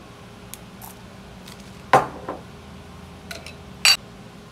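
Glass kitchenware handled on a counter: a few light clicks, a loud knock with a short ring about two seconds in followed by a smaller one, and a bright glassy clink near the end, as spices go into a glass blender jar and a small glass spice jar is handled.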